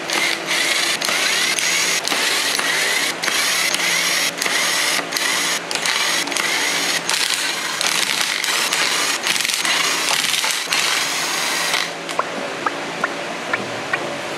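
Ryobi cordless driver running in short bursts with brief pauses, backing out the camshaft bearing cap bolts on an aluminium cylinder head. It stops about twelve seconds in, followed by a few light clicks.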